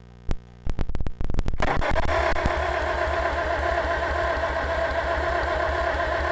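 A few sharp clicks, then about a second and a half in the Farmall Cub's four-cylinder gasoline engine starts being cranked over in an even rhythm. It turns over without starting, as there is no fuel in it yet; the cranking is only to check for spark at the plug.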